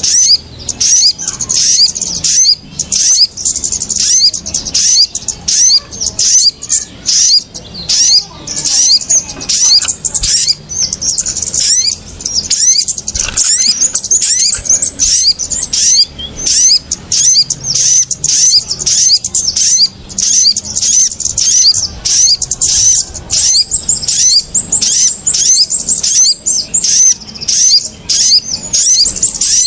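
Bird-lure recording of small songbirds known locally as kemade and sogon: a dense, agitated stream of rapid high chirps and twitters without a pause. It is the kind of call played to draw small birds down onto lime sticks.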